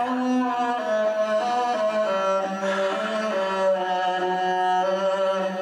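Background music: slow, long-held notes, with a low note sustained beneath a melody that steps from pitch to pitch.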